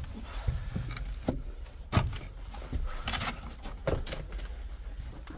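Scattered knocks and scrapes of a person climbing up a rough wall or ledge, hands and feet finding holds, with a brief scraping rustle about three seconds in.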